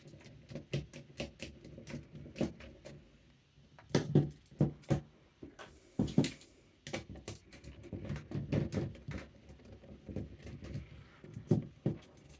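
Small clicks and taps of hand work on a metal airsoft version 2 gearbox shell: a Phillips screwdriver backs out the shell screws, and the gearbox and tools are handled on the table. A few louder knocks and a brief scrape come along the way.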